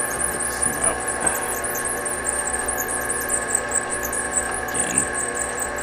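Metal lathe running steadily, with a drill bit turning in the end of a jackshaft, and a high squeak repeating about five times a second.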